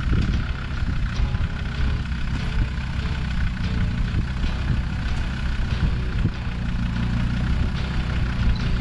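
Off-road 4x4 engine running steadily at low revs, idling or creeping slowly.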